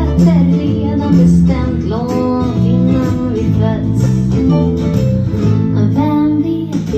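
Music: a ukulele bass plucking a bass line under a guitar-like strummed accompaniment, with a melody line above it.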